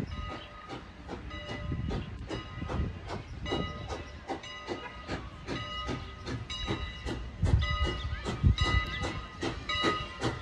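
A bell ringing over and over, each strike leaving a lingering ring, signalling the approaching train; heavier low rumbles come in during the second half.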